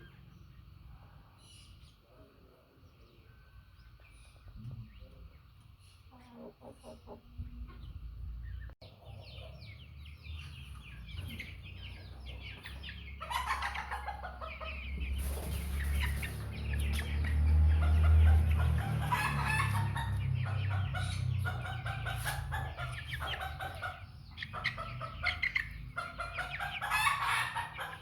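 A flock of hens clucking and calling, quiet at first and then a dense run of calls from about halfway in, over a low rumble.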